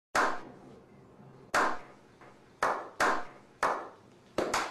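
A slow clap by a small group of people: single, sharp hand claps with a short echoing tail, more than a second apart at first and coming quicker near the end, about seven in all.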